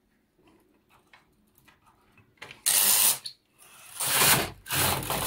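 Carriage of an Empisal 560KL knitting machine pushed by hand along the needle bed. After a few faint clicks it clatters and rattles in three loud bursts over the needles, starting about two and a half seconds in.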